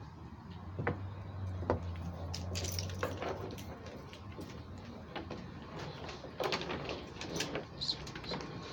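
Irregular knocks and scrapes as a dog scrambles against a wooden fence and plastic patio chairs, claws scrabbling and her tie-out cable rattling, with a cluster of them near the end.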